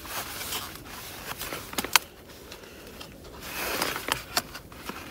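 Rustling and handling of camping gear, with scattered small clicks and one sharp click about two seconds in.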